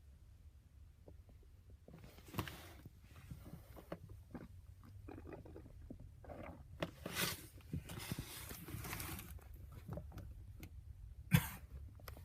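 A sick person coughing a few times: short, harsh bursts about two seconds in, around seven seconds, and the loudest one near the end, over a low steady rumble.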